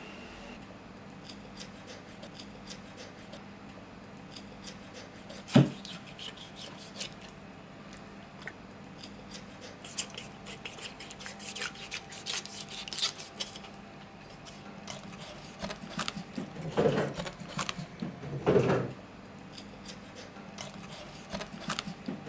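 Kitchen knife cutting and scraping through an anglerfish's skin and fin, a run of small clicks and scrapes. There is one sharp knock about five and a half seconds in, and two louder handling noises near the end.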